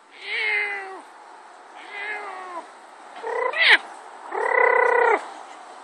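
Domestic cat yowling during mating: four drawn-out calls, the third sweeping sharply upward and the last held steady for about a second.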